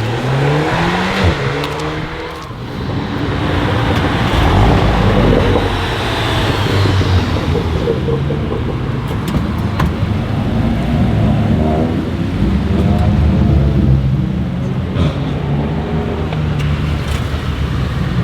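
Volkswagen Golf 8R's turbocharged four-cylinder engine accelerating hard, its pitch rising in the first couple of seconds, dipping briefly, then running loud and strong, with a few sharp cracks from the exhaust.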